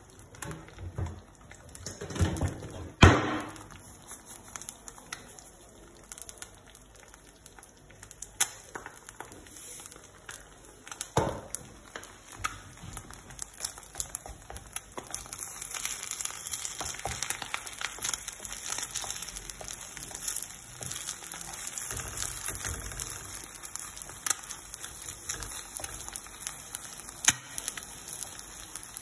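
Eggs frying in oil in a non-stick pan, sizzling and spitting, the crackle growing denser about halfway through. A few loud knocks near the start and one around eleven seconds in.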